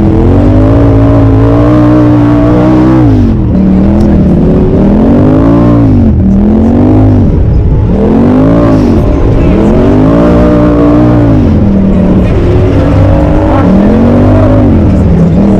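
Turbocharged Polaris RZR side-by-side engine under load: it is held high for about three seconds, then revs up and eases off several times in quick swells, as on a trail with throttle on and off.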